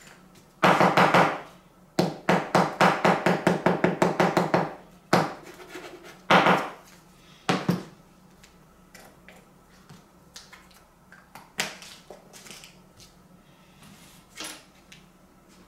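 Hand tool scraping over a wood veneer panel: one longer stroke, then a fast run of about seven strokes a second for nearly three seconds, then three single strokes. Faint light taps and clicks of tools being handled follow.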